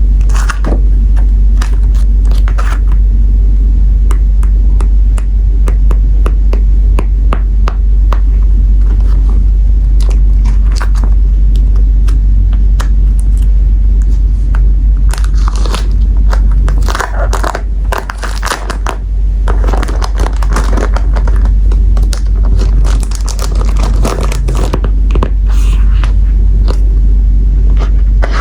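Sticker sheets and their packaging handled close to the microphone: irregular crinkling, crackling and scraping of paper and plastic over a steady low rumble.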